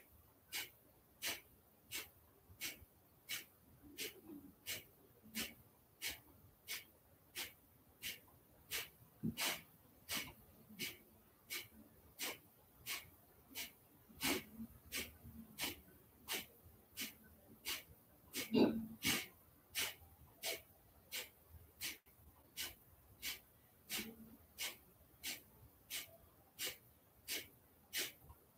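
Kapalabhati breathing: short, forceful exhalations through the nose in a steady rhythm, about one and a half a second, with one louder, longer exhale about two-thirds of the way through.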